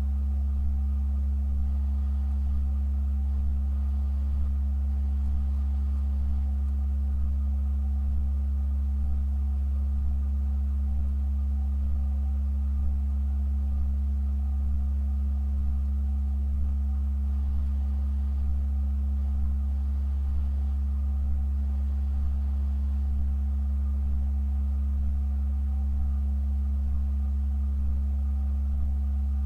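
Organ sustaining a deep low drone, with several quieter, higher tones held steady above it.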